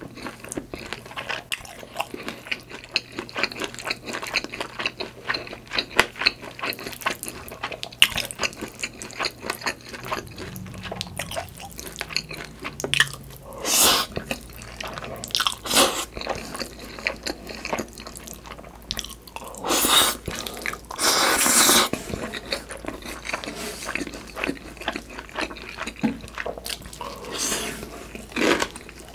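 Close-miked eating sounds: steady chewing full of small wet mouth clicks and crunchy bites. There are a few longer, louder noisy bursts in the second half.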